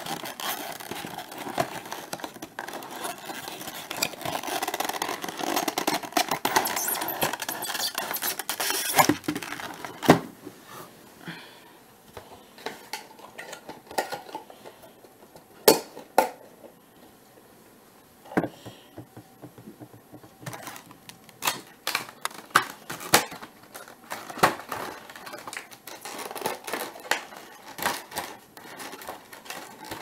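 Packaging of a boxed model airliner being handled: for the first nine seconds or so, continuous rustling and scraping of the cardboard box being opened and slid. Then scattered sharp clicks and taps as the black plastic inner tray is handled.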